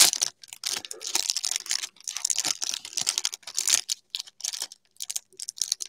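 Trading-card pack wrapper crinkling and tearing as it is opened and handled, in quick irregular bursts.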